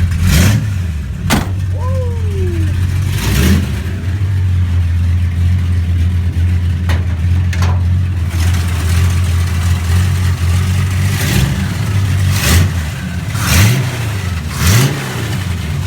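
1955 Chevy's 400 V8 idling steadily and revved in several short blips of the throttle, most of them bunched in the last few seconds.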